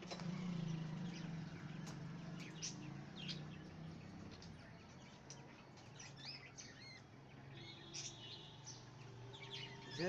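Budgerigars giving faint, scattered short chirps and peeps over a low steady hum.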